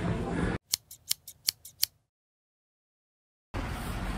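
Scissors snipping about seven times in quick succession, clean and dry with dead silence around the snips, like an edited-in sound effect. After a gap, outdoor street noise with traffic comes in near the end.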